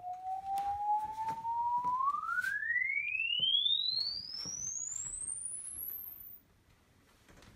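Sine-wave frequency-sweep test tone played through an Onn 37-inch Bluetooth stereo soundbar. It rises slowly at first, then climbs steadily faster into a very high whistle and cuts off about six seconds in, with faint knocks underneath.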